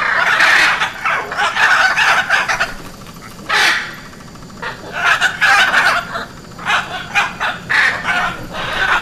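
Hyacinth macaw calls: a loud run of repeated calls with short pauses between them, some long and some brief.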